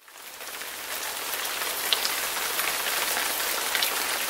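Rain falling steadily: a dense hiss with scattered distinct drop taps, fading in over the first second.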